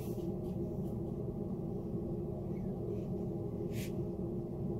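Steady low hum with a few constant tones, and a brief soft swish about four seconds in.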